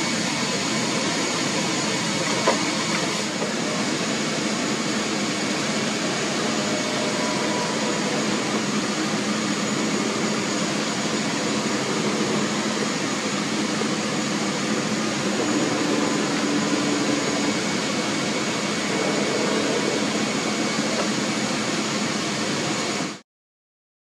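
Steady airliner cabin noise, the engines and air-conditioning running with faint steady tones over a constant rush. A single brief knock about two and a half seconds in, and the sound cuts off suddenly near the end.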